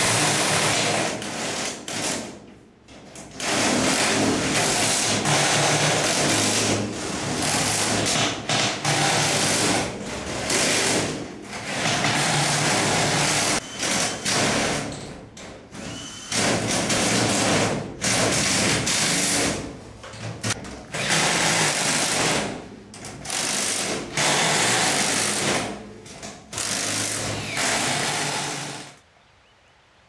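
Cordless impact drivers running nuts onto bolts through the steel arch panels of a quonset hut, with a rapid hammering rattle. It comes in repeated bursts of one to three seconds with short pauses between, and stops near the end.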